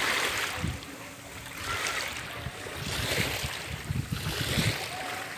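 Shallow seawater sloshing and washing in swells about once a second, with wind rumbling on the microphone.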